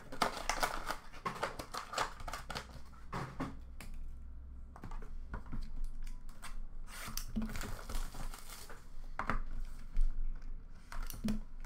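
Trading-card packaging and plastic card holders being handled over a plastic bin: irregular rustling and crinkling of wrapper and cardboard, mixed with light clicks and knocks.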